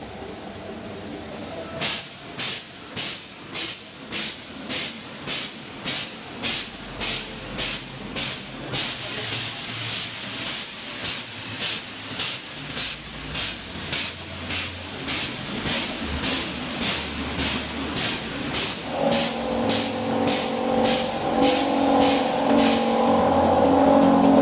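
Automatic cake flow-wrapping machine running, giving a sharp, even hiss about twice a second in time with its packing cycle. Other steady tones join in the last few seconds.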